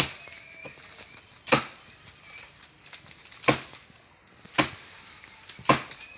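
Sharp blows struck on wood, five in all, irregularly spaced about one to two seconds apart.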